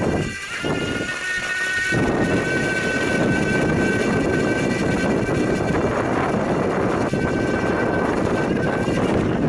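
Cyclone 250 W bottom-bracket electric motor whining at a steady high pitch as the recumbent trike rides along a gravel track, over a steady rush of wind on the microphone and tyre noise. The whine steps up slightly in pitch about half a second in, fades out about six seconds in and comes back faintly near the end.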